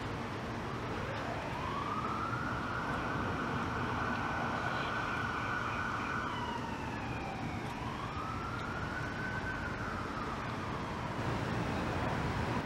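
Emergency vehicle siren wailing: a tone slowly rises to a long high hold, falls, then rises and falls once more. It sits over a steady rushing background noise.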